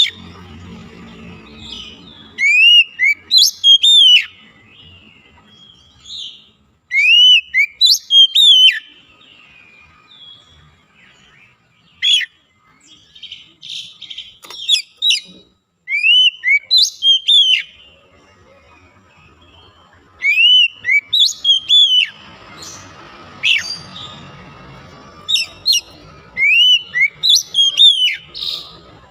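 Oriental magpie-robin (kacer) singing: loud, repeated whistled phrases of several quick rising-and-falling notes, each phrase a second or two long, coming every few seconds.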